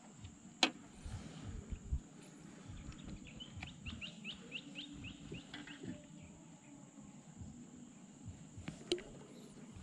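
A bird gives a run of about eight quick, short chirps in the middle, over a steady high insect drone, with low rumbling noise and two sharp clicks, one near the start and one near the end.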